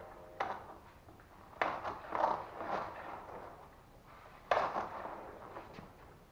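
BMW F850GS front forks being pushed down and released by hand: a few sharp knocks that die away quickly, the loudest about four and a half seconds in. The compressions settle the refitted front axle so everything lines up in the fork legs.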